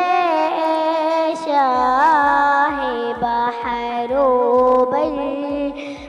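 A young girl singing an Urdu naat in long, held, ornamented phrases. A low, steady beat of about two thumps a second comes in under the voice nearly two seconds in.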